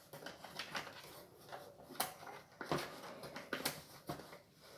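Scattered light clicks and knocks of a small plastic USB air cooler and its packaging being handled, about half a dozen spread irregularly.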